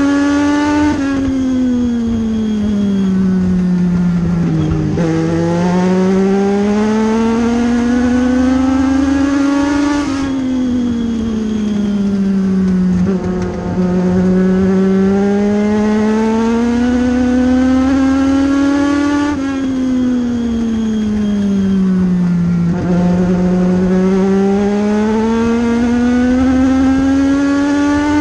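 A US Legend Car's four-cylinder motorcycle engine heard from inside the cockpit while lapping a short oval. The revs sink through each turn and climb again down each straight, about three laps' worth in a steady fall-and-rise cycle roughly every nine seconds.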